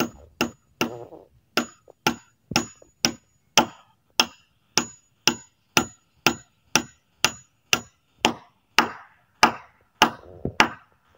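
Hand hammer driving nails with steady, evenly spaced blows, about two strikes a second, each with a short metallic ring.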